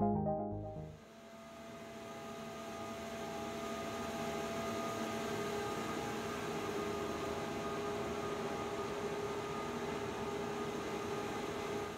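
Electro-hydraulic linear cable engine running: a steady machine hum and hiss with several held whining tones, rising slightly over the first few seconds and then staying even.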